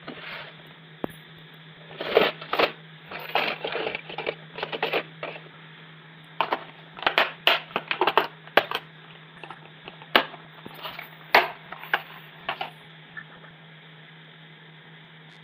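Small loudspeaker being tested, giving off irregular crackles and pops, which show that it works. A steady low hum runs underneath.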